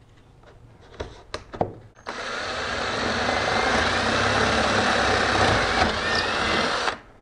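A few light clicks, then about two seconds in a cordless drill bores a hole through plywood, running steadily for about five seconds before stopping abruptly.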